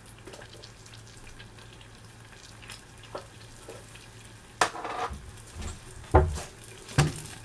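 Garlic, lemon and butter sauce sizzling faintly in a stainless steel saucepan over low heat, with a steady low hum under it. In the last three seconds come several sharp knocks.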